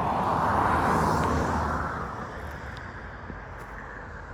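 A road vehicle passing by, its tyre and road noise swelling and then fading away about two seconds in.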